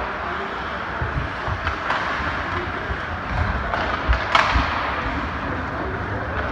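Ice hockey game in an arena: a steady hubbub of rink and crowd noise broken by sharp clacks of sticks and puck, the loudest cluster about four seconds in, with dull thuds of the puck or players against the boards.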